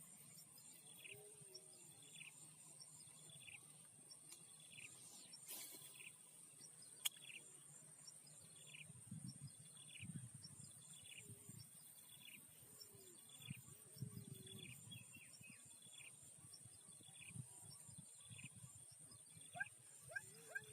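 Insects buzzing steadily and high-pitched, with a short falling chirp repeated about once a second. There is one sharp click about seven seconds in.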